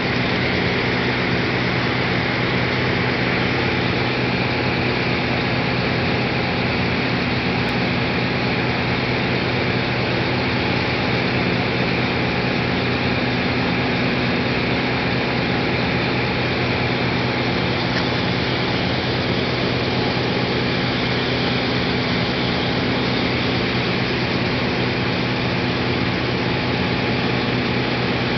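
Offshore oil platform machinery running with a steady, unbroken drone: a low hum under a constant hiss.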